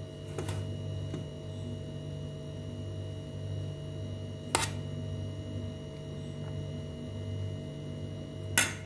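Steady low hum with three short, sharp clicks: a faint one about half a second in, a louder one about halfway, and the loudest near the end.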